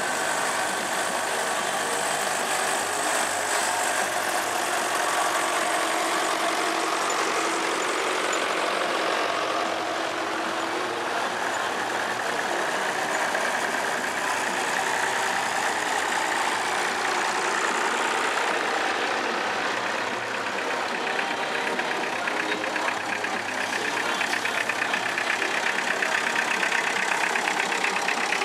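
An engine running steadily, with a fast, even beat that comes through more clearly near the end.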